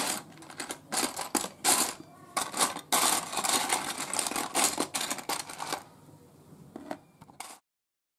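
Small plastic building bricks clattering as hands rummage through a plastic tub and set pieces down in a cardboard tray: a busy run of clicks and rattles that thins out and cuts off suddenly near the end.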